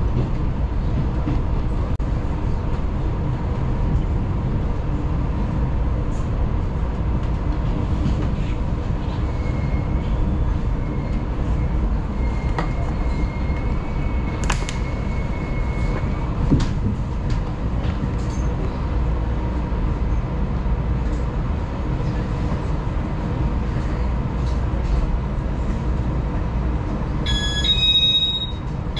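A Taiwan Railways local electric train gives a steady low rumble with rail noise. A faint high squeal comes about halfway through, and a short chime of several clear tones sounds twice near the end.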